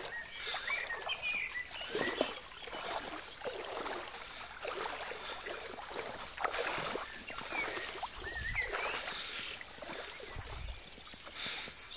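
Irregular water splashing and sloshing in the shallows as a hooked fish is played on a fly rod, with short bird chirps at several points.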